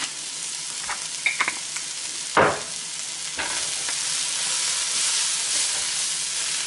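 Sliced onions, bell peppers and mushrooms sizzling in a nonstick frying pan over high heat while they are sautéed and stirred with a spatula. There are a few light knocks, and a sharper knock about two and a half seconds in. The sizzle gets a little louder partway through.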